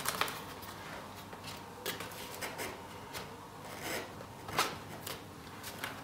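Light scattered clicks, knocks and rubbing of foam and plastic as the wing of a ParkZone Focke-Wulf 190A RC plane is pressed down onto the fuselage's locating dowels, the loudest knock a little past the middle.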